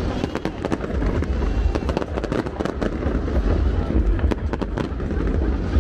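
Fireworks bursting: many sharp cracks and bangs in quick succession over a steady low rumble, with people's voices underneath.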